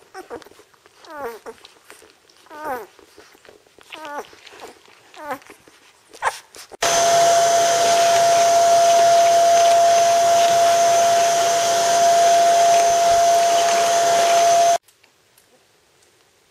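Thirteen-day-old Czechoslovakian wolfdog puppies whimpering and squeaking in short cries that rise and fall in pitch. About seven seconds in a vacuum cleaner starts up loudly with a steady whine, runs for about eight seconds and cuts off suddenly.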